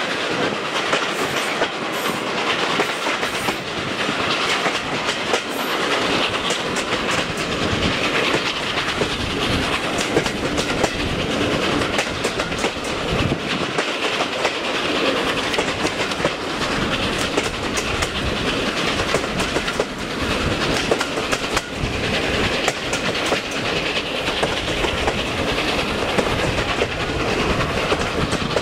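Passenger train running steadily, its wheels clicking over the rail joints.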